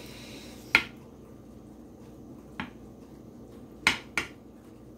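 Four sharp clinks of a serving utensil against a plate or pan as food is dished up, two of them close together near the end.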